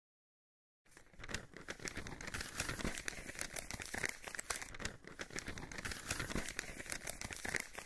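Paper or parchment rustling and crinkling, a dense run of small irregular crackles starting about a second in, as a scroll unrolls.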